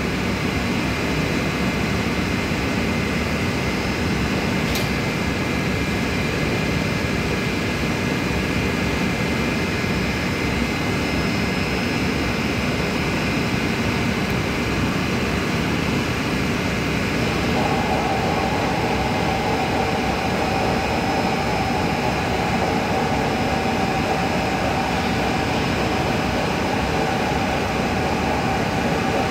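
Steady, loud drone of plant-room machinery with several hums layered in it. A higher-pitched hum joins a bit over halfway through, and there is a single faint click a few seconds in.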